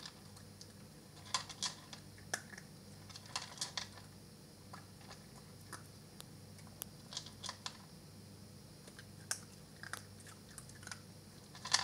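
Maltese puppy eating his food from a plastic bowl: irregular crunches and clicks of chewing and biting, coming in short clusters with brief pauses between.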